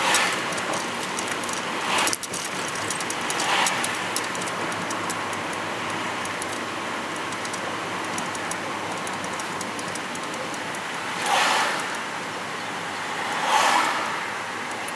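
Road and engine noise heard inside a car's cabin while driving in town: a steady rush, with a few brief swells of louder noise, the clearest about eleven and thirteen and a half seconds in.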